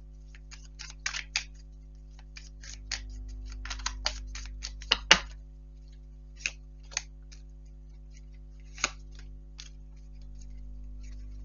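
Tarot cards being handled and laid down on a table: irregular crisp flicks and taps of card stock, with the sharpest snap about five seconds in.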